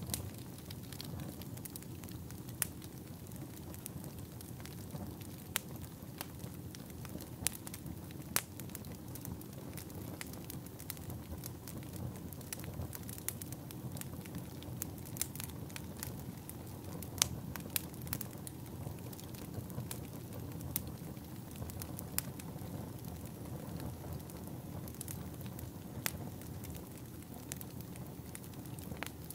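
Fire crackling: a steady low rustle of burning with irregular sharp pops and snaps scattered through it.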